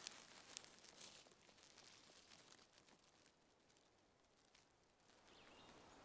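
Near silence: faint outdoor hiss with a few soft rustles and clicks, quietest a little past the middle.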